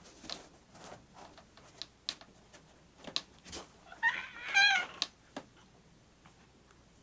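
A cat meows once about four seconds in, a wavering call about a second long. Around it are light scratches and rustles of a cat pawing and digging at a fabric cat bed.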